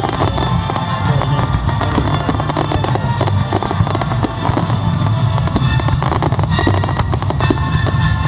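Fireworks display going off in a rapid run of bangs and crackles, over loud music from the display's soundtrack.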